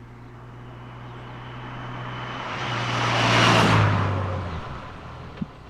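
A motor vehicle passing by. Its engine hum and road noise grow louder for about three seconds, peak, then drop in pitch and fade as it goes past.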